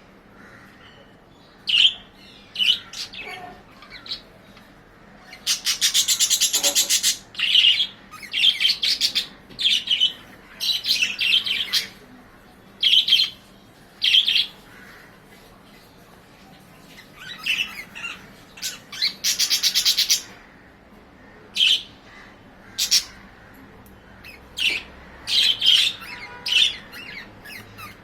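Pet budgerigars chirping and warbling in short, irregular calls with quiet gaps between. Two longer stretches of rapid chatter come about six seconds in and again near twenty seconds.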